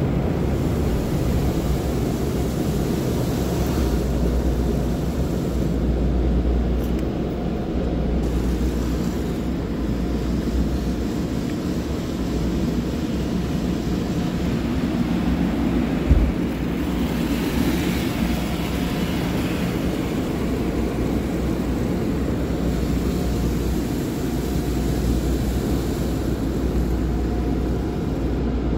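Automatic car wash heard from inside the car cabin: a steady rush and rumble of water spray and wash machinery. A single thump a little past halfway, followed by a brief swell of hiss.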